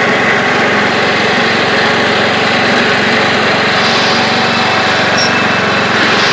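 Craftsman YT3000 riding lawn tractor's engine running steadily at a constant speed, without the noise it had been making; the owner puts that noise down to a chipped plastic pulley, now removed.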